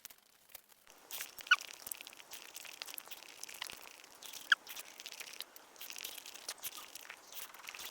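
Close-up crinkling and crackling of a food wrapper being handled and torn open, with many sharp crackles and two brief squeaks. It starts about a second in.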